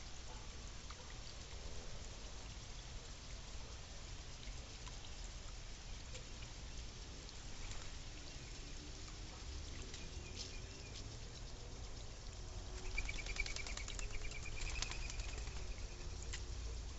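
Backyard birds calling: a short high call about ten seconds in, then a rapid chattering trill about thirteen seconds in, over a steady low background rumble.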